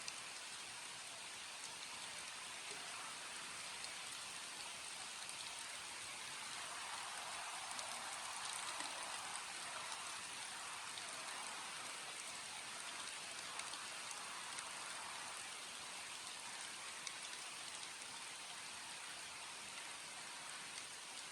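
Steady rain falling, a dense hiss of drops with scattered individual drop ticks. It grows a little heavier for several seconds in the middle before easing back.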